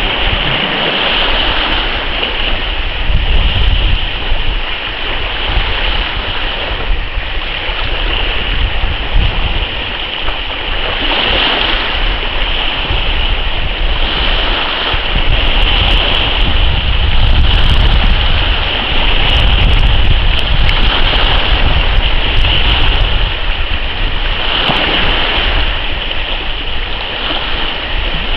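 Wind buffeting the microphone with a heavy low rumble, over the hiss of choppy sea water that swells and fades every few seconds.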